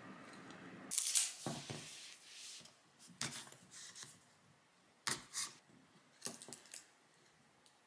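Short crinkles and taps of food packaging being handled on a table, a plastic wrapper and a paper drink carton with a straw, in four or five separate bursts, the loudest about a second in.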